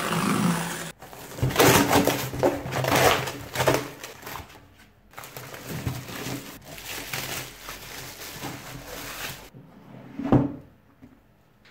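Corrugated cardboard box torn open by hand, followed by clear plastic wrap crinkling and ripping as it is pulled off the box inside. There is a single thump near the end.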